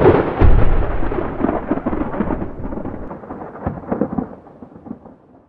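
Thunderclap sound effect: a sudden loud crack that rolls on with crackling and low rumble, fading away over about five seconds.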